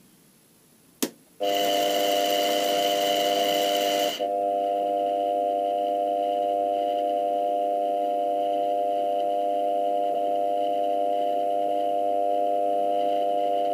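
JET BD-7 metal lathe switched on with a click about a second in, then its spindle running at steady speed: an even whine of several steady tones, with a loud hiss over it for the first few seconds that then drops away.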